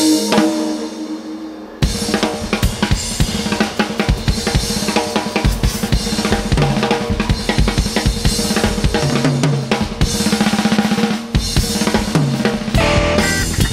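Background music: a sustained electronic chord fades out, then a drum-kit rock beat with bass drum, snare and cymbals comes in about two seconds in.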